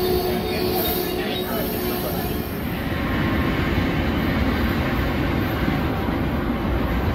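Amtrak Amfleet passenger coaches rolling along a station platform, with a steady hum of several tones; about two and a half seconds in the sound changes to an even low rumble of a train on the line.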